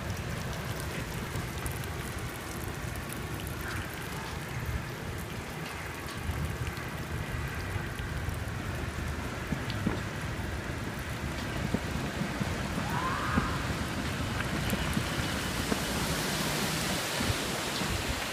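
Steady heavy rain falling on wet pavement and street, an even hiss over a low rumble. The hiss grows stronger in the last few seconds.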